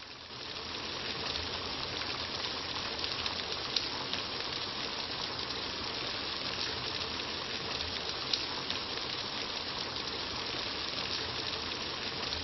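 A steady rushing noise like running water, which comes up about half a second in and then holds even, with a few faint ticks.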